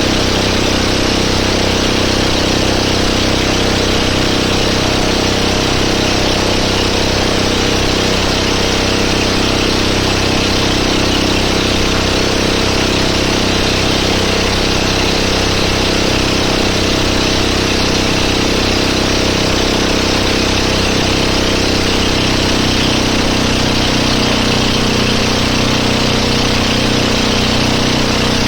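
Motorboat engine running steadily at a constant loud level, its note shifting slightly lower a little over 20 seconds in.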